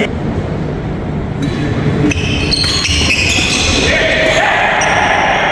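A doubles badminton rally in a sports hall: racket strikes on the shuttlecock and players' footwork on the wooden court, echoing in the hall, with voices in the background.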